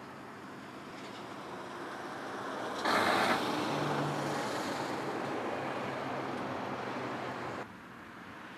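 Road traffic noise: a passing vehicle swells in from about a second in, is loudest around three seconds, then the noise drops away abruptly near the end.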